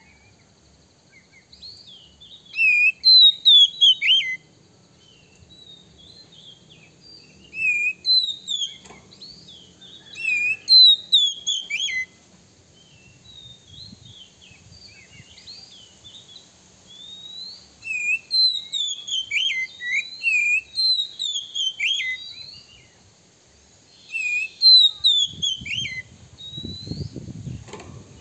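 Oriental magpie-robin (kacer) singing: several loud bursts of varied sweeping whistles and trills separated by pauses of a few seconds, with softer notes in between.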